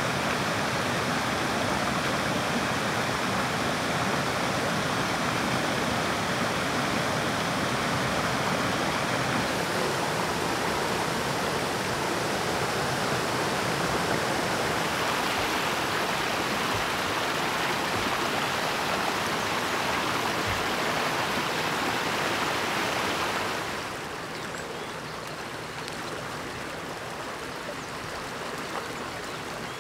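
Rushing stream water pouring over rocks in rapids, a steady, full rush. About three-quarters of the way through it drops to a softer, quieter flow.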